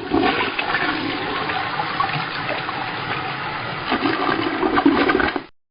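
A toilet flushing: a loud, steady rush of water that swells a little near the end, then cuts off abruptly.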